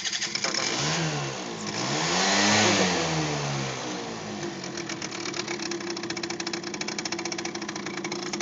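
Scooter engine revved briefly twice, its pitch rising and falling, then settling to idle with a fast, even rattle from the variomatic (CVT variator). The rattle comes only at idle; the owner suspects the variator nut's domed washer is fitted the wrong way round, or the nut is not tight enough.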